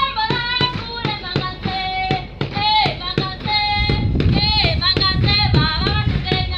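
Children singing together in unison, with rhythmic hand clapping at about three to four claps a second. About four seconds in, a low rumble joins in under the singing.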